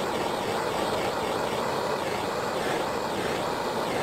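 Handheld heat tool running with a steady rushing noise while it heats a solder-seal butt connector to melt the solder and shrink the sleeve onto the wires.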